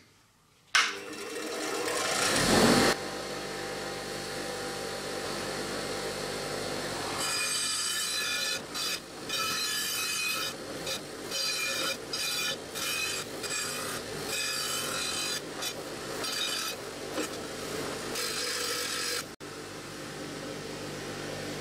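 Bench grinder switched on about a second in, running up to a steady hum. A metal sign is then pressed against its spinning wire wheel in a series of short, scratchy brushing passes. Near the end the sign is lifted off and the motor runs on freely.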